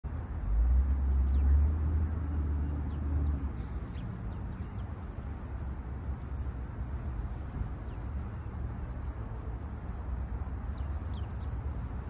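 Steady high-pitched insect chorus, with a low rumble in the first few seconds. A few faint, short chirps from small birds are scattered through it.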